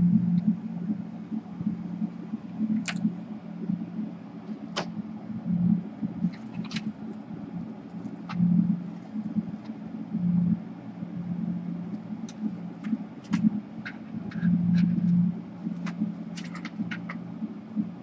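A low, steady hum that swells and fades unevenly, with scattered light clicks and taps of hands and small tools working on an opened laptop's chassis. The clicks come in a cluster near the end.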